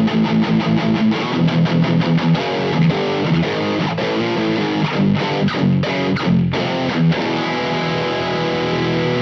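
Distorted electric guitar through a Teisco drive pedal with its tight switch on, playing short palm-muted chugs and riffs, then a chord left to ring near the end. The tight switch rolls off some bottom end so the palm-muted notes come through clearer.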